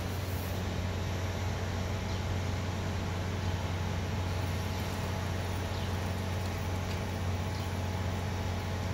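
Steady low hum of a car at idle, stationary in stopped traffic.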